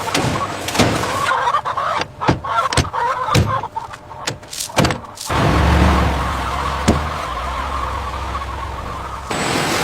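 A run of sharp knocks and clattering, then from about halfway a steady low mechanical rumble sets in.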